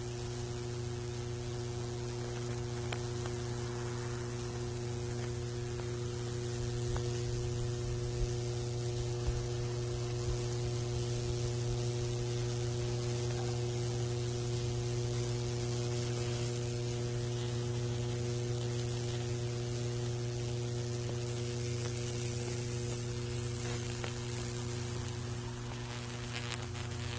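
High-voltage electric current arcing through a wooden board as it burns branching Lichtenberg figures into the wood, giving a steady electrical hum with a constant crackling sizzle.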